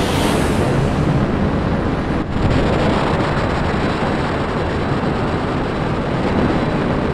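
Jet aircraft engine roar, a loud steady rushing noise with a brief dip about two seconds in.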